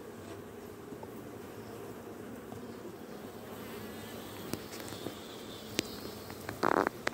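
A colony of Omani-type honeybees buzzing in an opened hive, a steady dense hum. A few sharp clicks and a brief loud crackling burst come near the end.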